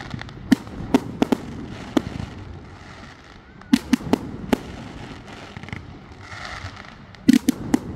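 Fireworks going off: sharp bangs of shells bursting in quick groups, one spread over the first two seconds, a tight run of four about four seconds in, and another cluster near the end.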